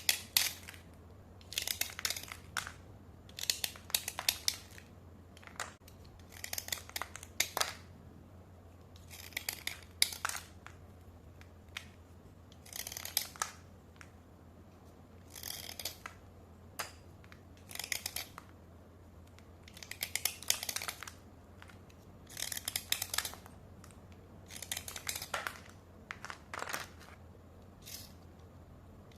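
Slate pencil being scraped dry: short bursts of gritty scraping strokes every second or two, with small clicks between them.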